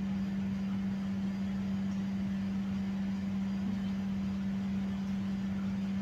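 A steady low hum at one pitch, with a faint rumble beneath it.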